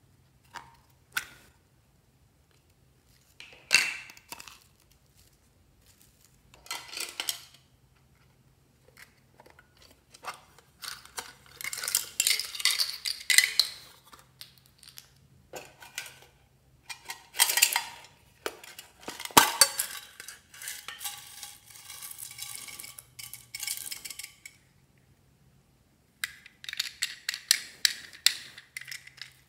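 Hard plastic toys and small plastic charms clicking and rattling against each other and a glass dish, in scattered bursts, with longer stretches of rattling as charms are poured out.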